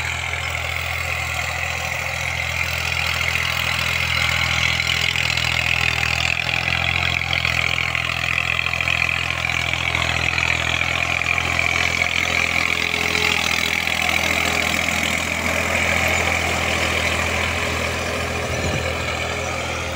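Tractor engine running steadily as it sows a field, a constant low drone with a broad rushing noise above it.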